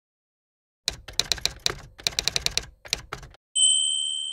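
Typewriter sound effect: a rapid run of key strikes for about two and a half seconds, then a single carriage-return bell ding that rings on and fades.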